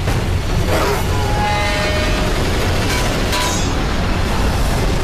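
Heavy, steady rumbling wind of a tornado in film sound effects, with whooshing gusts about one second and about three seconds in, under a music score.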